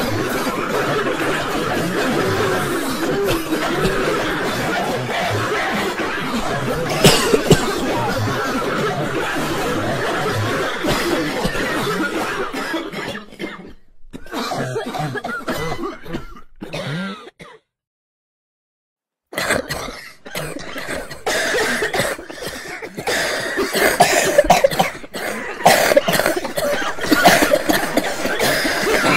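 Many people coughing and clearing their throats at once, overlapping in a dense crowd of coughs. It cuts off abruptly to dead silence for about two seconds a little past the middle, then the coughing resumes.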